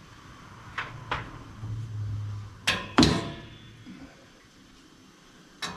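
Sharp metallic clicks and knocks from handling a motorcycle wheel on a wheel balancer: two light clicks, then a pair of loud knocks about three seconds in, and another knock near the end. A low hum runs under the first half and stops with the loud knock.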